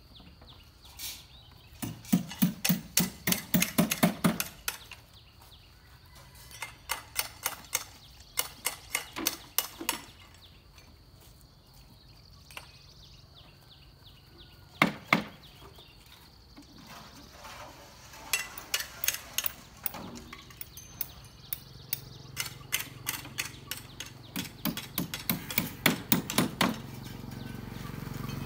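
Building-site work noise: bursts of quick, sharp knocks and clacks, several strikes a second, with quieter pauses between them, and a single loud knock about halfway through.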